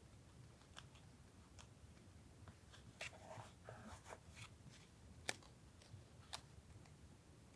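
Faint, scattered taps and soft rustles of paper and stationery being handled during collage journaling, with a sharper tap about five seconds in, over a low background hum.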